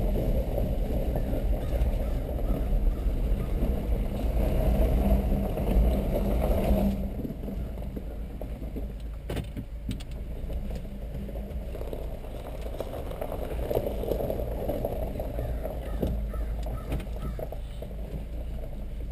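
Cabin noise of a Honda CR-V driving slowly on a gravel driveway: a steady engine and tyre rumble with a hiss over it. About seven seconds in, the hiss drops away and the rumble grows quieter, with a few faint knocks after.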